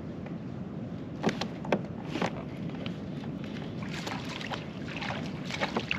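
Water lapping and sloshing around a fishing kayak, with a steady wash of noise. Several short, sharp sounds stand out: a few about a second to two seconds in, and a cluster around four to five and a half seconds.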